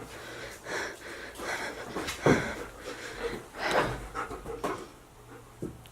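Rapid, regular panting breaths, one about every second or less.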